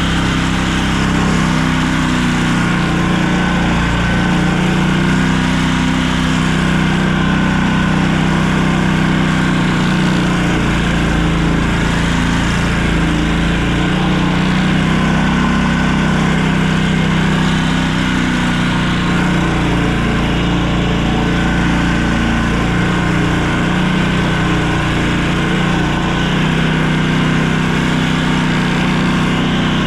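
A motor vehicle's engine running steadily while driving, a continuous low drone whose pitch rises and falls slightly.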